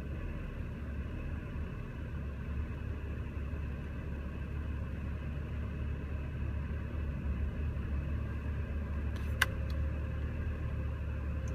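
BMW engine idling steadily with the AC on, the rough idle that a scan puts down to misfires on cylinder four and low air through the throttle. A single sharp click comes about nine seconds in.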